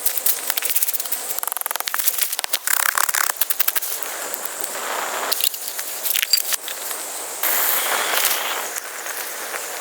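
Rapid, irregular crackling and clicking, with stretches of scraping or rustling noise.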